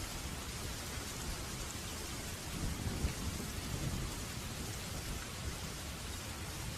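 Steady rain falling, an even hiss across all pitches, with a low rumble that swells and fades about the middle.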